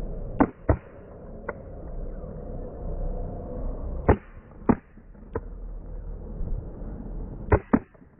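Sharp, loud footfalls of a high jumper's shoes striking the track during the approach run, in three short groups of two or three strikes each, over a steady outdoor background hum.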